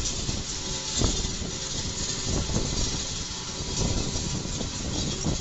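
Steady background rumble and hiss, with a few sharp clinks, the clearest about a second in, as the steel cylinder block and brass-shoed pistons of a hydraulic piston pump are handled.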